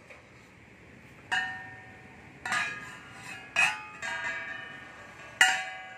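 Polished metal three-blade boat propeller being struck as it is handled, five sharp knocks that each ring out like a bell and fade, the loudest near the end.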